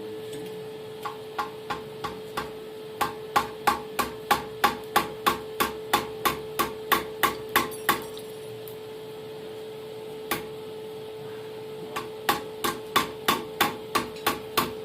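Hand hammer forging hot steel on an anvil: a few lighter blows, then a fast run of heavy blows at about three a second, a pause with a single blow, and another run near the end. A steady hum runs underneath.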